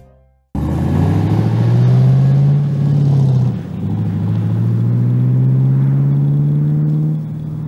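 Car engine accelerating hard, starting suddenly about half a second in. Its pitch climbs, drops at a gear change about three and a half seconds in, climbs again through the next gear, and eases off near the end.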